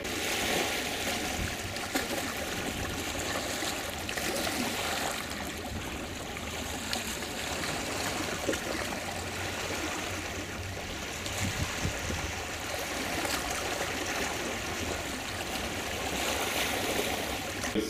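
Shallow lake water splashing and lapping in a steady wash, with small waves washing in around legs wading through it.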